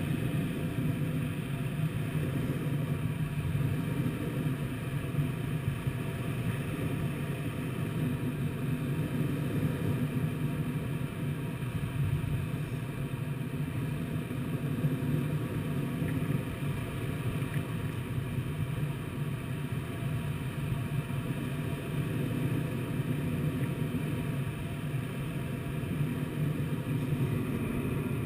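Steady low rush of air streaming over the canopy and fuselage of a Twin Astir two-seat glider in flight, heard from inside the cockpit.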